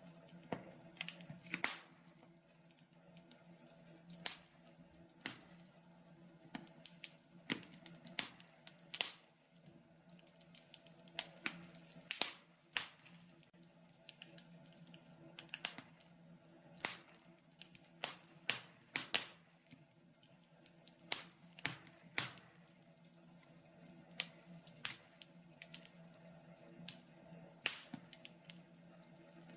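Wood fire crackling in a fireplace: irregular sharp pops and snaps, sometimes several in quick succession, over a faint steady low hum.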